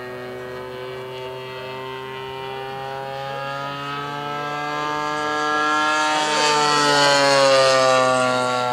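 The 30cc engine of a Hangar 9 Spitfire radio-controlled model flying a pass at steady throttle. The engine note grows louder as the plane comes closer and is loudest about three-quarters of the way through. Its pitch falls as the plane goes by near the end.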